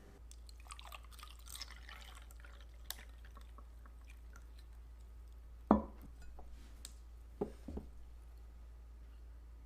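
Kitchen sounds: a faint dribble of liquid in the first couple of seconds, then one sharp knock of an object being set down about six seconds in and two lighter knocks soon after.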